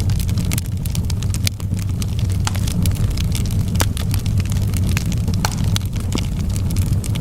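Wood fire burning: a steady low rumble of the flames with frequent sharp, irregular crackles and pops.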